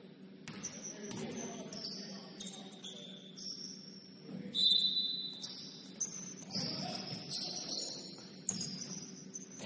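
Sneakers squeaking on a basketball court floor in repeated short, high-pitched squeals, with several dull thuds from the play.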